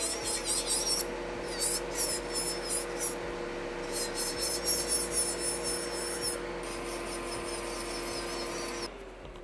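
Electric nail drill (e-file) with a gel-removal carbide bit grinding hybrid polish and gel off a fingernail: a steady motor whine with rasping strokes as the bit passes over the nail. Near the end the drill is switched off and its whine winds down.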